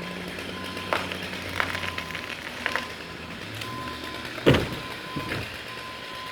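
An engine running low, with a steady high warning beep that cuts in and out and a few sharp knocks, the loudest about four and a half seconds in.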